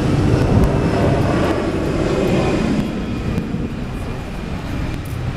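Airbus A320-200 jet engines at takeoff thrust on the takeoff roll: a loud, steady rumbling jet noise that eases slightly after about three seconds.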